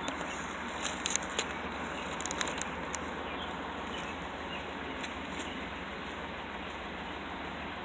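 The stock-exhausted 3.5-litre DOHC V6 of a 2010 Toyota Highlander idling quietly at the tailpipe, a steady low hum. A few clicks and rustles of handling in the first three seconds.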